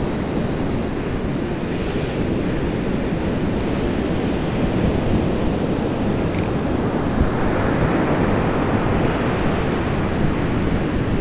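Steady wind buffeting the camera microphone: an even low rushing noise with no clear separate events.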